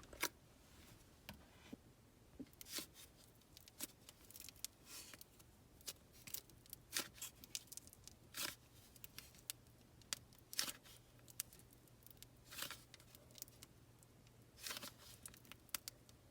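Faint, irregular clicks and soft tearing rustles of soft air-dry clay being pulled apart and pressed into a measuring cup.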